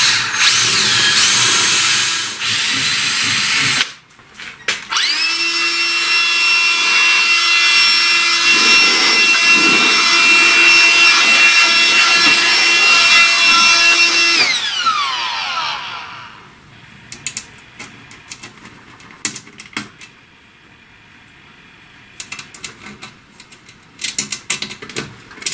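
A cordless drill boring through thin sheet metal for about four seconds. Then a small cordless fan-driven tool, used on the metal swarf, runs at a steady whine for about ten seconds and winds down. Light clicks of handling follow.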